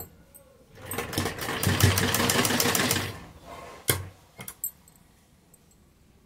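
Sewing machine stitching a straight seam through cotton and lace: it runs for about two seconds with a fast, even ticking of stitches, then stops. A sharp click and a few small knocks follow.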